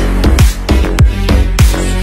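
Background music: an electronic track with a steady, heavy beat and deep bass notes that fall in pitch, repeating a couple of times a second.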